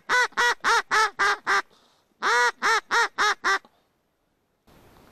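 Mallard quacking in the hen's calling pattern: a run of about seven quick quacks, a short pause, then a second run of about six, the first quack of the second run drawn out longest.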